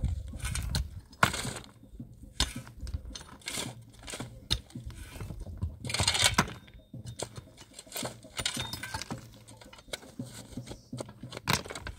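Irregular knocks and clinks of hard objects being handled, with a longer scrape about six seconds in.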